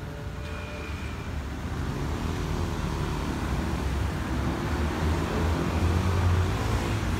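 Road traffic passing on a busy road below: a continuous low rumble of cars and engines that grows steadily louder.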